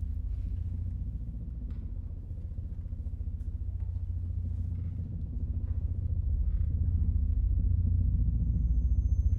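Low, pulsing rumbling drone in the piece's music, swelling louder in the second half, with thin high steady tones entering near the end.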